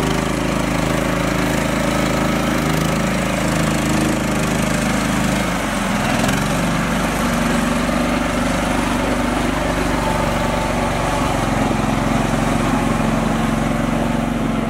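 Mini tractor engine running steadily under load while the tractor and its trailer drive through shallow floodwater, with the wheels churning and splashing the water. The engine note shifts a little about six seconds in.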